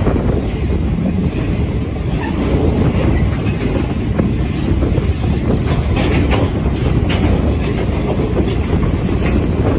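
Freight train wagons loaded with containers and steel rolling past close by: a steady rumble of steel wheels on the rails, with the clickety-clack of wheels over rail joints. A few sharper clacks come in the second half.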